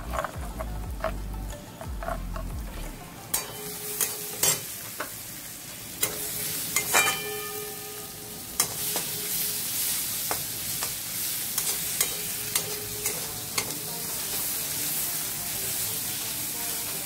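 A spoon whisking spice paste in a clay bowl with small clicks, then sliced onions frying in a metal kadai: a steady sizzle from about three seconds in. A spatula stirs and knocks against the pan, one knock ringing briefly.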